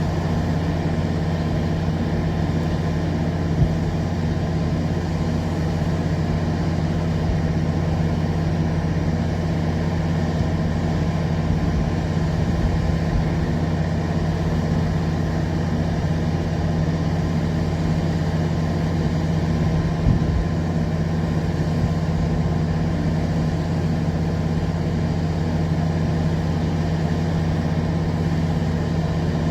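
Steady low hum of an idling engine, holding one even level throughout, with a single faint click a few seconds in and another about twenty seconds in.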